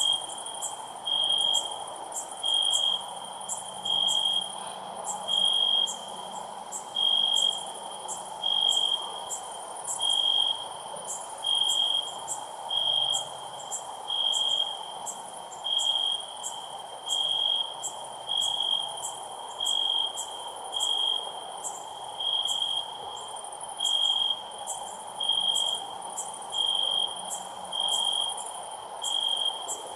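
Cricket chirping loudly and steadily, short chirps at one high pitch repeating about once every second and a half, with a faster, higher ticking behind it.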